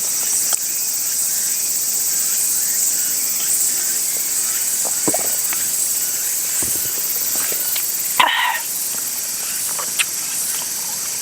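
Steady high-pitched chorus of insects in a summer forest, with a few faint clicks and one short louder rustle about eight seconds in.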